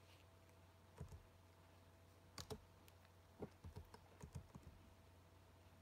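Faint typing: about ten short, irregular key clicks, some in quick pairs, spread from about a second in to past four seconds.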